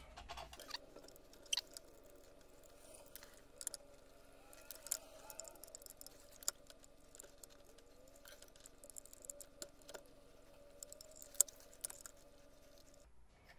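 Light, scattered metallic clicks and taps of small parts and hand tools being handled while linear guide rails are unbolted from a small CNC lathe's axis, over a faint steady hum.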